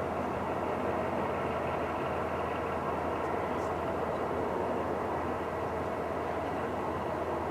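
Steady low rumble of heavy machinery running, with no distinct knocks or impacts.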